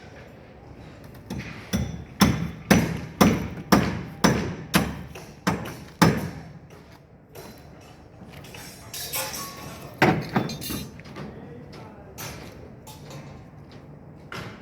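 Hammer strikes in a steady run of about two blows a second for some four seconds, then a few more blows about ten seconds in.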